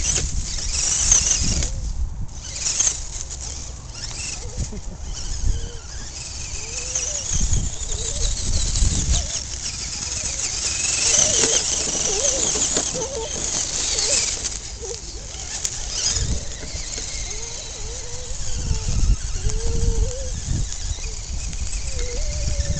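Wind buffeting the microphone, over the whine of a Tamiya TLT scale RC crawler's electric motor and gears rising and falling in pitch as it is driven.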